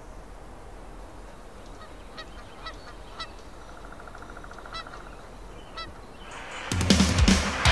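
Gulls calling: five or six short calls over a steady background hiss. Near the end, loud music comes in.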